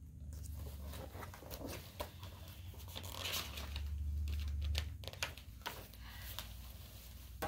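Paper rustling and handling noise as a picture book's pages are turned, with scattered soft clicks over a low steady hum.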